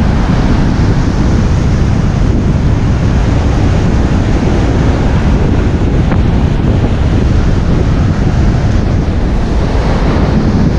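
Strong wind buffeting the microphone over surf breaking and washing up the beach: a loud, steady rumble and rush.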